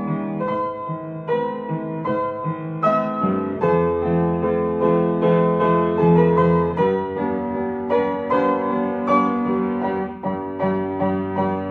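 Gentle piano music: chords and melody notes struck one after another, with a deeper note held in the middle.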